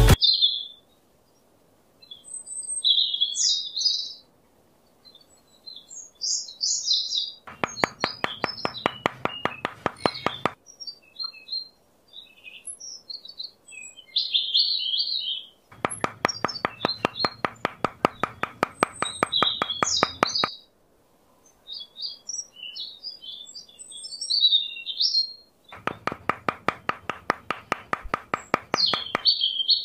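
Small songbirds chirping throughout. Three spells of rapid, even tapping, as of a small hammer knocking twig posts in, come about a third of the way in, past the middle, and near the end.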